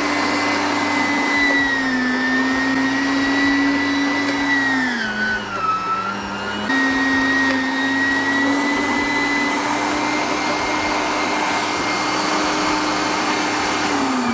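Electric household meat grinder running with a steady, high motor whine as it grinds beef and pork with parsley roots. Its pitch sags about five seconds in, comes back up, and starts falling away at the very end as the motor winds down.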